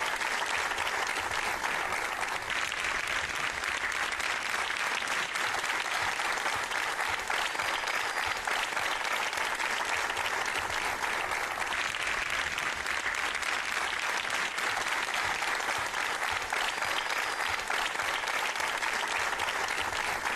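Studio audience applauding, a steady dense clapping that holds at the same level throughout.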